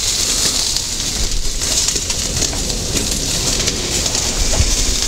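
Pork shashlik skewers sizzling over glowing charcoal with no flame: a steady high hiss.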